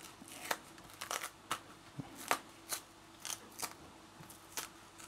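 Green plantain skin being pried and torn away from the fruit by gloved fingers: a run of short, irregular crackles and snaps, about three a second.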